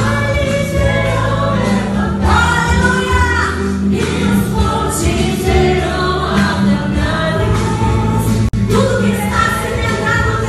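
Gospel praise song sung by a choir of voices over instrumental accompaniment with a steady bass line. The sound cuts out for a split second about eight and a half seconds in.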